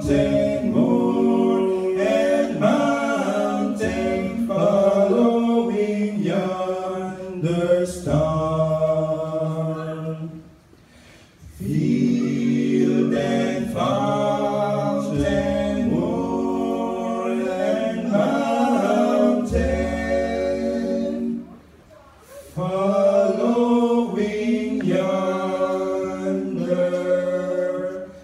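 Three men singing a Christmas carol a cappella in harmony, in long phrases with two short pauses about ten and twenty-one seconds in.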